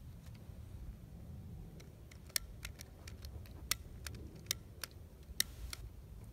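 Dry twigs snapping and popping at a small steel wood-burning camp stove: irregular sharp cracks, four of them much louder than the rest, a few with a brief metallic ring after them. A low rumble of wind on the microphone runs underneath.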